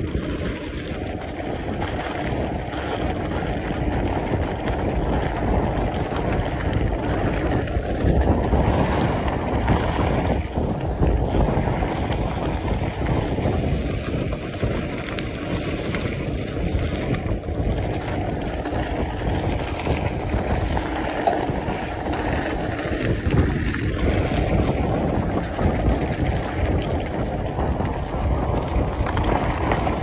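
Steady wind rumbling and buffeting on the microphone of a mountain bike under way on a dirt track, with the bike's rolling noise mixed in.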